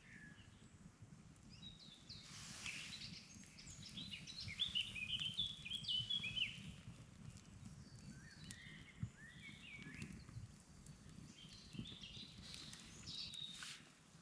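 Wild songbirds singing in short phrases of quick, high chirps, the busiest stretch a few seconds in, over a faint low outdoor rumble.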